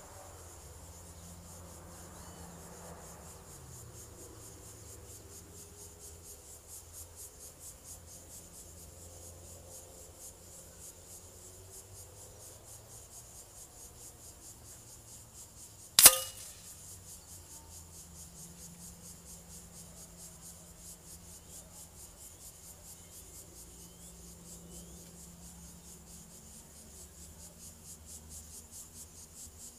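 A single sharp, loud smack about halfway through as an 18.13-grain air-rifle pellet strikes the paper target and its backing board. Crickets chirp steadily throughout.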